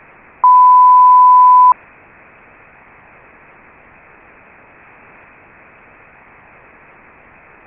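A single steady electronic beep lasting a little over a second, the closing tone of an emergency alert broadcast. It is followed by a steady hiss of static.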